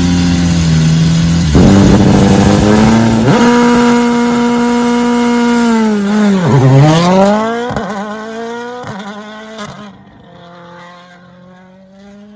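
Toyota Yaris WRC rally car's 1.6-litre turbocharged four-cylinder at high revs, with quick gear changes. About six seconds in the engine note drops sharply and climbs straight back up as the car lifts and accelerates again. A few sharp cracks come from the exhaust, then the engine fades away into the distance, still revving up.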